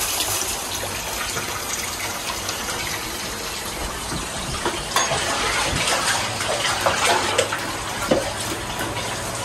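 Steady rushing background noise, with a few sharp knocks of a knife on a wooden cutting board in the second half.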